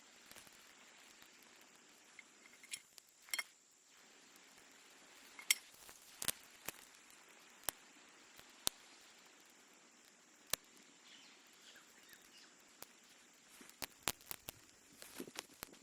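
Irregular sharp clicks and light taps, about a dozen spread unevenly, over a faint steady high hiss.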